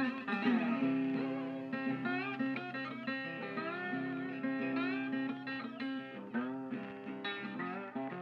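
Music track of a plucked guitar, with many notes sliding in pitch, slowly fading out.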